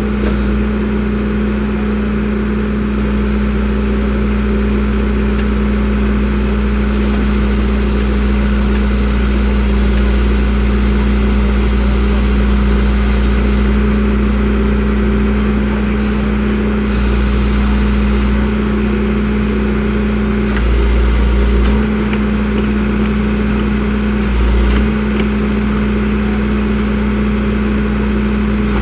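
A motor vehicle running steadily: a constant engine hum over a low rumble, swelling briefly a few times.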